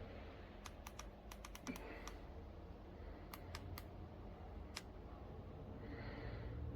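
Faint, irregular light clicks and taps in small clusters over a low steady hum.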